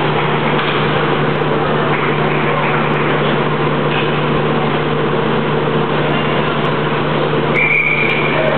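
Ice rink ambience: a steady low hum under a constant wash of arena noise from skating and the crowd.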